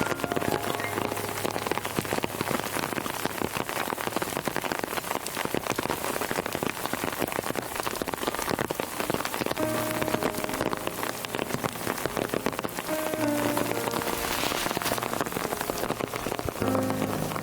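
Heavy rain falling steadily, a dense patter of drops. Soft background music notes come in faintly at times, about ten seconds in and again near the end.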